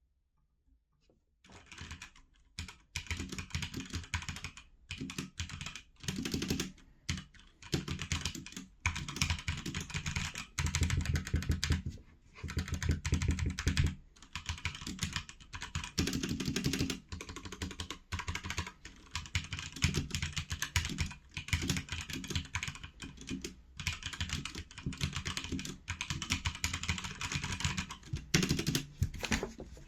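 Typing on a HyperX tenkeyless mechanical keyboard with linear red switches: fast runs of key clacks in bursts of a few seconds with short pauses. It starts after a second or two of near silence.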